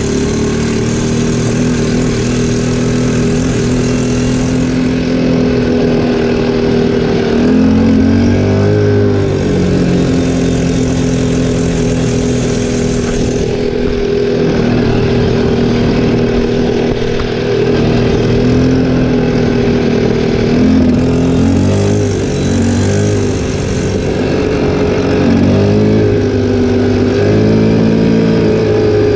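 Linhai 300cc 2x4 ATV's single-cylinder four-stroke engine running under way. Its note dips and rises with the throttle a few times, once about a third of the way in and twice near the end.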